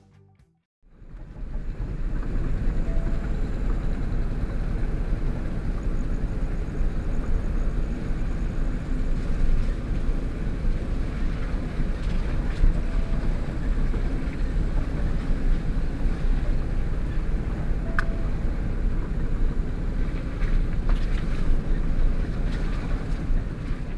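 Truck driving along a rough dirt road, heard from inside the cab: a steady low rumble of engine and tyres that begins about a second in, with a few faint clicks and knocks.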